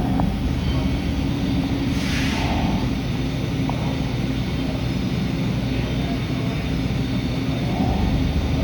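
Hurco CNC milling machine running: a steady mechanical drone with a constant low hum, and a short hiss about two seconds in.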